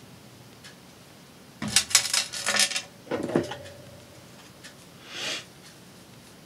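Small hard craft tools and supplies clattering as they are handled on a work table. A quick run of rattling clicks is followed by a single clink that rings briefly, then a short soft swish.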